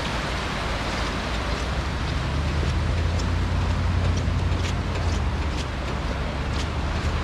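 Steady rush of shallow surf washing over the beach, with wind rumbling on the microphone and a few faint ticks.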